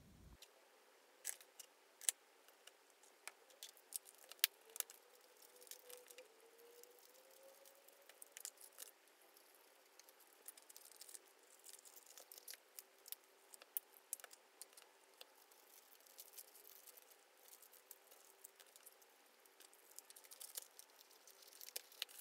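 Hands handling paper on a desk: soft paper rustling with many scattered sharp clicks and taps as things are picked up and set down.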